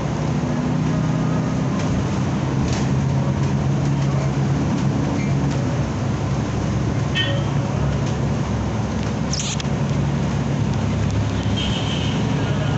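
City bus engine running and road noise heard from inside the bus as it drives, the engine hum shifting in pitch. A brief hiss comes about two-thirds through and a short high squeal near the end.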